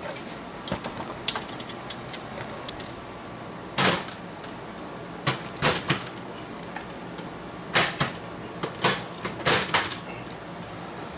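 Sharp metal clicks and clunks from an IGT slot machine's main door and latch being handled during a latch alignment adjustment. The knocks come in a scattered series, the loudest about four seconds in and a quick cluster near the end, over a steady low hum.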